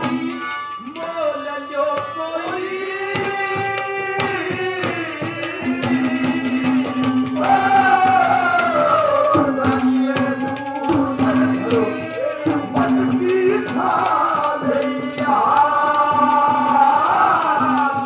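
A man singing a folk song loudly into a microphone, his voice sliding and wavering in long phrases, over a steady held note from an accompanying instrument and regular hand-drum strokes.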